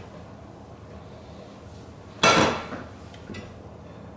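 Metal cooking pot set down with a single sharp clank about two seconds in, ringing briefly as it fades; a few faint clicks follow.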